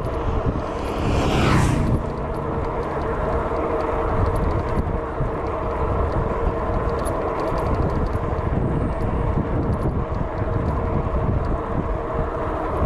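Steady riding noise of a Cyrusher Ranger fat-tyre e-bike on the road, a hum from motor and tyres. About a second in, a vehicle passes close by, its pitch dropping as it goes.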